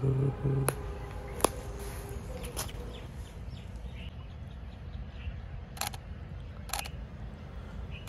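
Camera shutter clicking several times: a sharp click about a second and a half in, and two more near the end.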